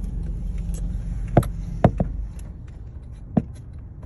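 Car engine and road hum heard from inside the cabin, steady at first and dropping away after about two seconds. A few sharp clicks break in: three in quick succession around the middle and one more near the end.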